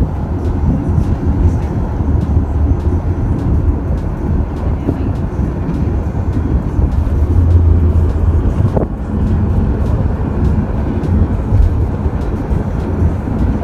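Car driving along a road, heard from the moving car: a steady low rumble of road and wind noise.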